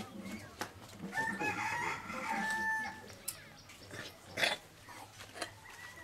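A rooster crowing once, a drawn-out call of about two seconds, followed by a few sharp taps, the loudest about four and a half seconds in.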